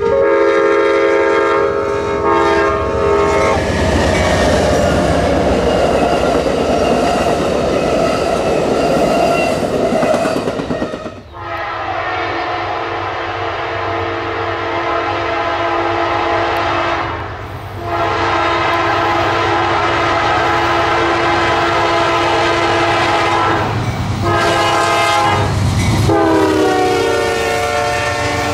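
An Amtrak passenger train's horn ends with a couple of short toots, then the train rushes past loudly at speed. After a cut, a freight diesel locomotive's horn blows the grade-crossing signal (long, long, short, long); its pitch drops on the last blast as the locomotive passes.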